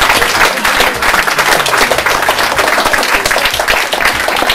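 A small crowd of adults and children applauding, many hands clapping at once.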